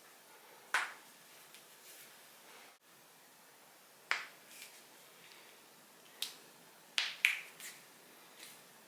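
Human joints being cracked: a series of sharp pops, one about a second in, then several more between about four and eight seconds in, the last few close together.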